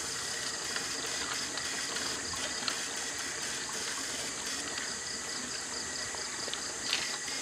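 Shallow stream water running and trickling over rocks, a steady hiss, with a faint steady high tone and light ticks in the background.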